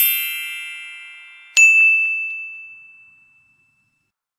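Logo-reveal chime sound effect: a shimmering, sparkling chime fades away, then about a second and a half in a single bright ding rings out and dies away over about two seconds.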